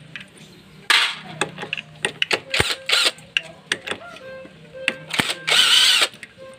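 Cordless impact driver run in two short bursts, about a second in and near the end, loosening the clutch spring bolts on a motorcycle engine, with small metallic clicks and rattles of bolts and parts being handled in between.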